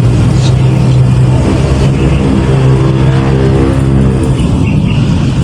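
An engine running steadily with a low, even hum and a rumble underneath.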